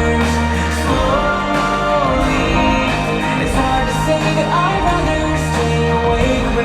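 Show music: a song with a singing voice over long held bass notes.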